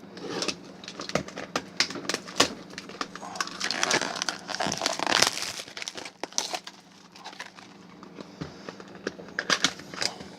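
Packaging of a sealed trading-card box crinkling and tearing in a quick run of crackles as it is opened by hand, busiest in the first half and again briefly near the end.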